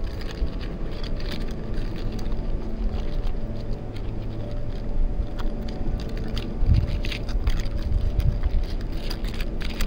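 Wind buffeting the microphone in a low rumble, with many faint clicks throughout.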